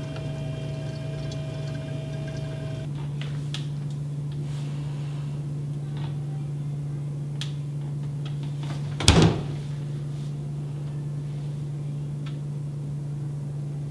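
Steady low hum with a high whine for the first few seconds, a few light clicks, and a mini refrigerator door closing with a thump about nine seconds in.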